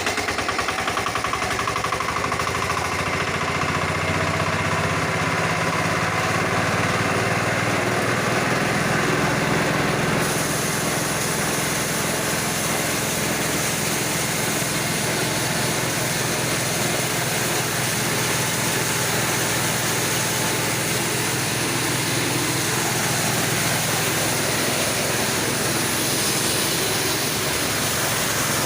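Engine-driven homemade corn grinding machine running steadily, a loud, even mechanical din that turns a little brighter in its upper range about ten seconds in.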